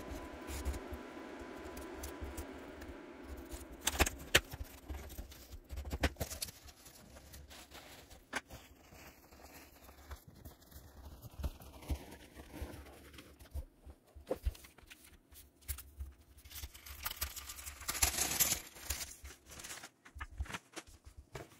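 Hands unpacking a cardboard shipping box: a small box cutter slitting the packing tape, cardboard handled with scattered taps and rustles, then foam packing peanuts rustling as hands dig through them, with a louder spell of rustling near the end.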